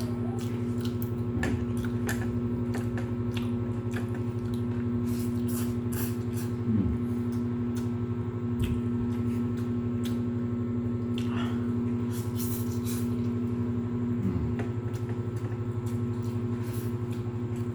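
A steady low mechanical hum, like a running motor or appliance, with scattered small clicks and smacks of eating by hand.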